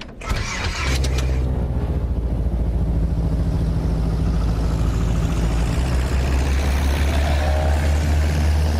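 Light single-engine ski-plane's piston engine and propeller, swelling up in the first second and then running steadily, the engine note shifting about six seconds in as the plane slides off on its skis.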